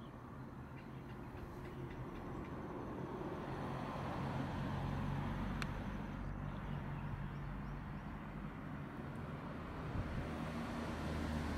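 Low, steady engine hum of a motor vehicle, growing louder over the first few seconds and then holding, with a single brief click about halfway through.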